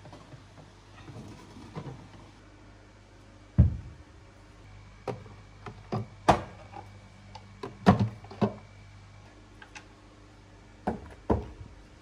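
Plastic food-storage containers and clear plastic bins being set down and knocked against refrigerator shelves: a string of separate sharp clunks, the loudest about three and a half and eight seconds in, over a low steady hum.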